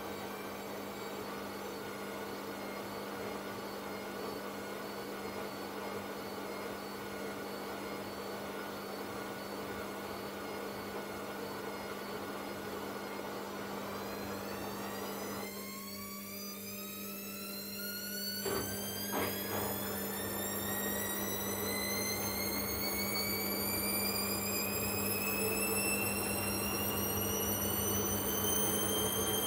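Hisense front-loading washing machine in its spin cycle: a steady hum for about the first half, then the motor's whine starts climbing in pitch as the drum speeds up, growing gradually louder. Two knocks sound about two-thirds of the way in.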